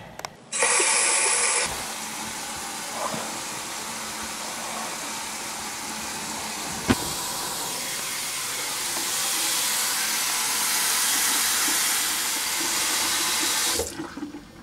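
Water rushing from a sink tap into the basin: a hard gush for the first second, then a steady stream that swells later and stops abruptly near the end as the tap is shut off. One sharp click about halfway through.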